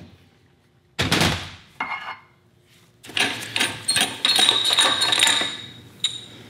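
Metal engine parts and hand tools clanking against the engine and steel workbench during disassembly. A sharp knock comes about a second in, then a run of metallic clinks and rattles with a ringing note.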